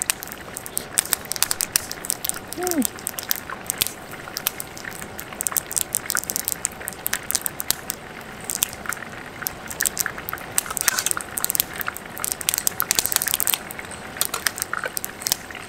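Wood campfire crackling in a metal fire pit: a steady scatter of small sharp pops and snaps.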